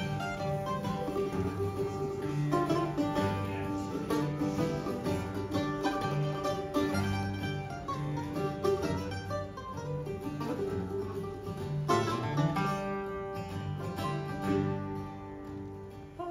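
Bluegrass band playing an instrumental passage on acoustic instruments: mandolin, flat-top acoustic guitar and fiddle, with a steady pulse of low notes under quick plucked runs.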